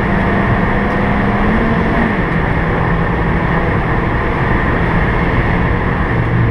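Suzuki Swift engine running hard at speed, heard inside the cabin under heavy road and wind noise; the engine note drops in pitch about two seconds in.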